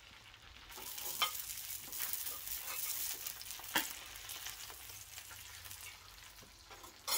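Seafood frying in butter on a barbecue hotplate, a steady sizzle that swells about a second in and eases off near the end, with two sharp clicks along the way.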